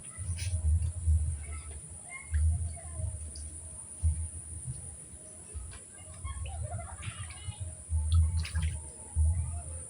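Outdoor ambience: an irregular low rumble comes and goes under a steady high-pitched whine, with faint scattered bird chirps.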